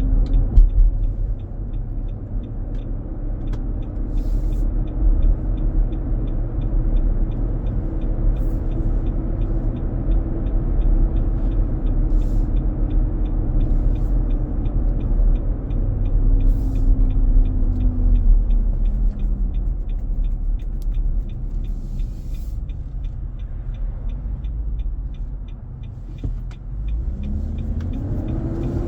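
2023 Nissan Armada being driven with the engine fan clutch engaged, making a loud droning roar over the road rumble. The drone's pitch holds, drops about two-thirds of the way through, then climbs again near the end as the vehicle is accelerated. The fan clutch stays locked up far longer than normal, a fault the dealer traced to the fan clutch.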